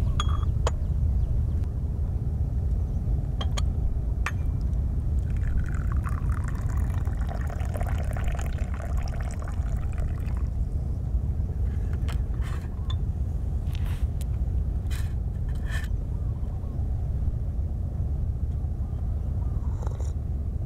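Tea poured from a small porcelain teapot into a porcelain cup for about five seconds. Light clinks of porcelain come before and after the pour. A steady low rumble runs underneath.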